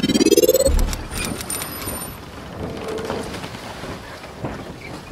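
Logo intro sound effects: a rising whoosh that ends in a deep boom just under a second in, a brief high shimmering tone, then a soft rushing wash.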